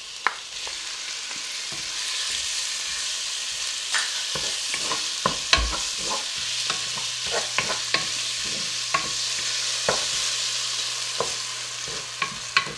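Marinated pork sizzling and frying in hot oil with sautéed garlic, onion and ginger, the sizzle growing louder over the first couple of seconds as the meat goes into the pot. A wooden spoon stirs it, knocking and scraping against the pot again and again.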